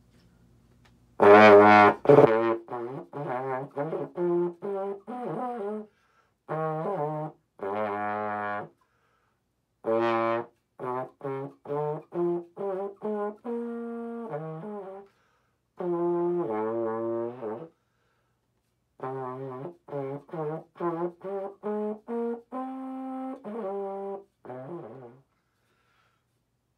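Valve trombone playing a scale-and-chord etude in A-flat: phrases of short, separate notes with a few longer held ones, broken by brief pauses. The first note, about a second in, is the loudest.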